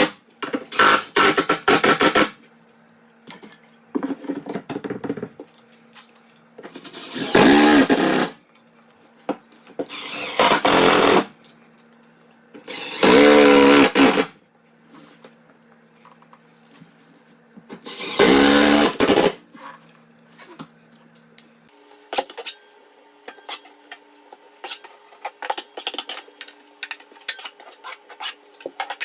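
About six short bursts of a loud whirring noise, each a second or two long, with a faint steady hum between them. Light scattered clicking and clatter follow near the end.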